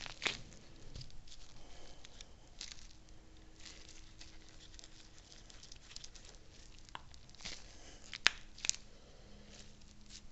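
Faint handling noise: rubber gloves rustling and scattered light metal clicks as the threaded screw shaft of a Volvo Penta mechanical tilt unit is picked up and fitted to its housing. Two sharper clicks come about eight seconds in.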